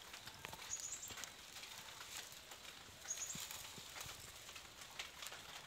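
Faint, scattered clicks and taps of a bamboo stake being handled at a potted dragon fruit plant, with two brief high chirps, one about a second in and one about three seconds in.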